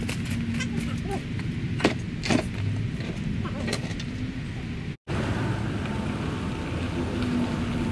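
Steady low outdoor rumble, with two sharp knocks about two seconds in as a heavy object is carried and set down on gravel. The sound cuts out for an instant about five seconds in, then the rumble resumes.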